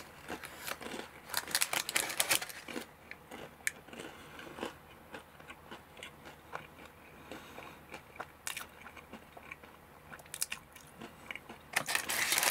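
A person chewing a mouthful of browned pizza crust, with irregular crunching and small mouth clicks, busiest in the first few seconds. A burst of rustling comes right at the end.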